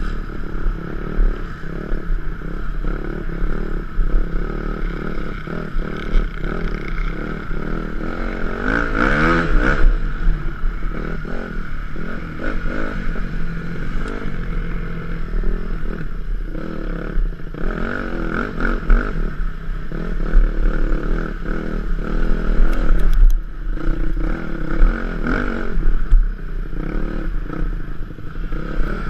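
Yamaha YZ250F dirt bike's single-cylinder four-stroke engine running hard under the rider, revs rising and falling through the gears, with a sharp rev-up about nine seconds in and again near the end. Heavy wind rumble on the helmet-mounted microphone.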